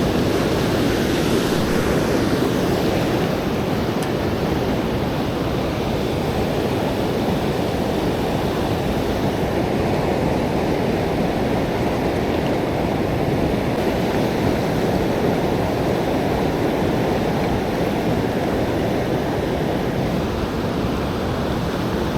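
Steady rush of fast-flowing, high river water pouring over a dam.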